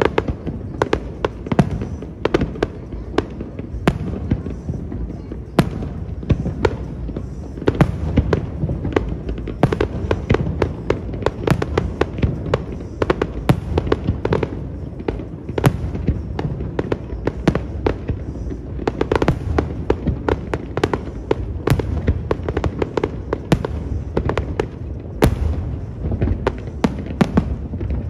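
Fireworks display: aerial shells bursting in quick succession, many sharp cracks and bangs a second over a steady low rumble.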